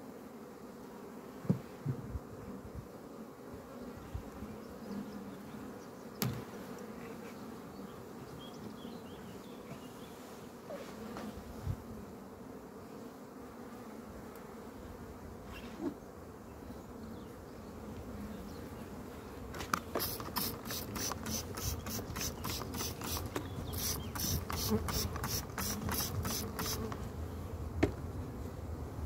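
Honeybees buzzing steadily in a swarm over an opened hive, with a few wooden knocks as comb frames are handled. In the second half comes a rapid rasping, about four strokes a second, for several seconds.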